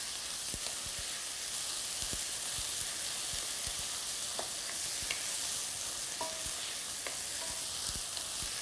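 Shredded chicken and chopped green chilli sizzling in hot olive oil in a non-stick wok, with a steady hiss. A wooden spoon knocks and scrapes against the pan now and then as the pieces are stirred.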